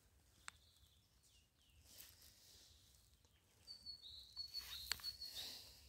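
Near silence, with a bird's thin high whistled call lasting about a second and a half about two thirds of the way in, and a few faint clicks.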